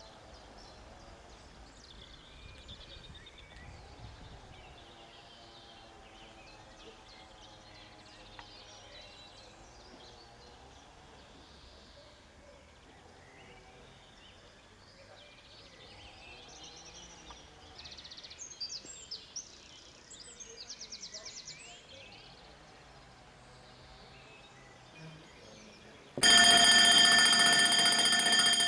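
Quiet outdoor ambience with birds chirping and a bird trilling a little past halfway. Near the end, a steam locomotive whistle sounds loud and steady, from a Southern Railway Bulleid West Country class Pacific steam locomotive approaching the station.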